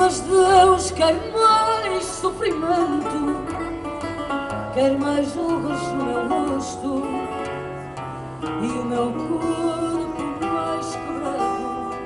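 A woman singing with a wavering, held melody over a plucked acoustic guitar accompaniment, performed live into a microphone.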